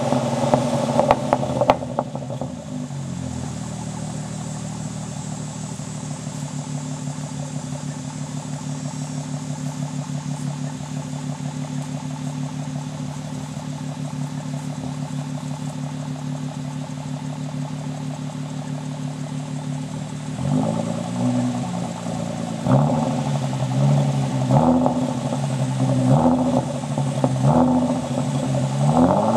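Nissan Maxima V6 exhaust idling steadily while burning off a Seafoam cleaning treatment. The engine is then revved in a series of short throttle blips, one every couple of seconds, near the end.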